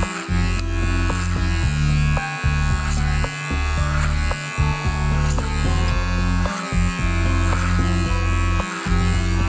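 Electric hair clipper buzzing steadily as it cuts, with brief breaks, under background music.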